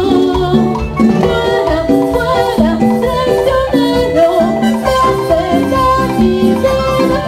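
Live Latin tropical dance band playing, with a repeating bass line, melody instruments and percussion keeping a steady dance beat.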